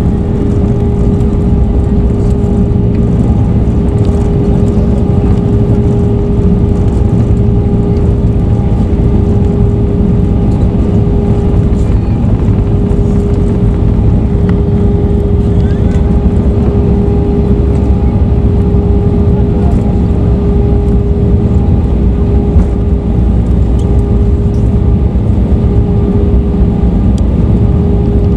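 Airbus A320 cabin noise during the landing roll-out: a loud, steady rumble of engines and wheels on the runway, with a steady hum running through it.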